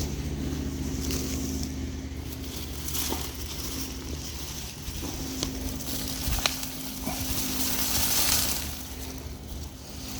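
A steady low engine-like hum runs throughout, with rustling noise and a few short clicks and scrapes, the kind made by digging potatoes out of garden soil.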